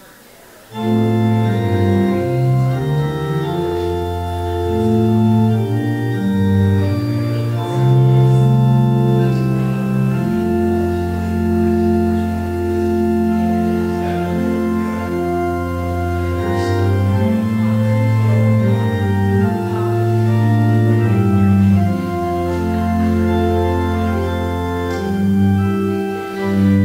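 Organ playing slow, sustained chords over a low bass line, beginning about a second in.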